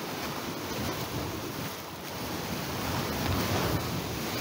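Wind buffeting the microphone over the wash of choppy sea against a stone pier, gusting louder about three seconds in.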